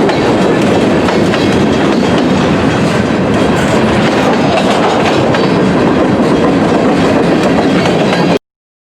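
Freight cars of a CSX train rolling past, steel wheels clattering over the rail joints in a steady, loud rumble that cuts off suddenly near the end.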